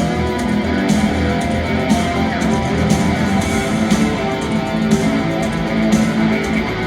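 Rock band playing live: strummed and plucked electric guitars with bass guitar over a steady drum beat, in a passage with no singing.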